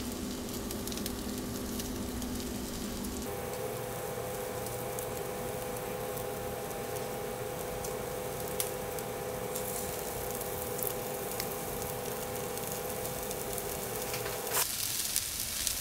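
Salmon patties sizzling in hot olive oil in a nonstick skillet: a steady frying hiss, with a few faint clicks as more patties go into the pan. The sizzle grows louder near the end.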